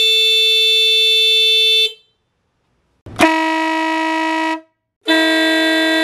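Motorcycle horn tests: the Yamaha R3's stock horn sounds one steady, fairly high note for about two seconds. After a pause, a lower-pitched horn blast lasts about a second and a half. Then the stock horn and a Wolo Big Boy Max electric air horn blow together in a louder two-tone blast.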